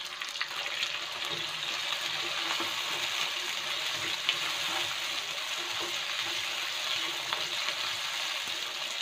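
Sliced onion, tomato, ginger and lemongrass sautéing in hot oil in a nonstick wok: a steady sizzle, with the scrapes and taps of a plastic spatula stirring against the pan and one sharper knock a little over four seconds in.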